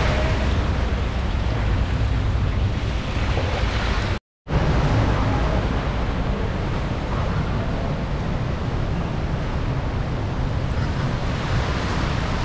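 Steady rushing noise with a low rumble, cutting out for a moment about four seconds in.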